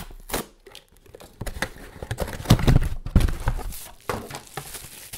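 Cardboard mailer box being opened and handled: irregular rustling, scraping and tearing of cardboard, with a cluster of heavier knocks about halfway through.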